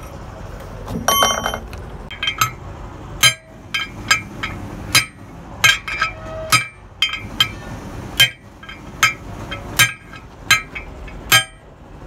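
Steel bar rammed by hand down into the bearing bore of a truck wheel hub, striking metal on metal about a dozen times, roughly one sharp ringing clank every 0.7 seconds, as it knocks at the bearing race. About a second in there is a brief clinking rattle of metal parts.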